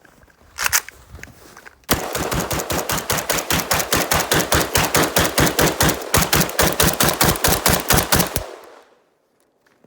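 AK-pattern rifle fired as a long rapid string, about six or seven shots a second for some six seconds, then stopping abruptly. One or two single reports come a little before the string.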